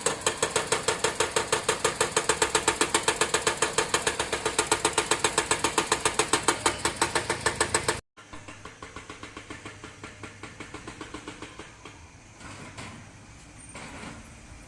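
Engine of a road-construction machine running with a rapid, even knocking beat, about seven pulses a second. About eight seconds in the sound cuts off sharply and comes back fainter with a similar beat and a few louder swells.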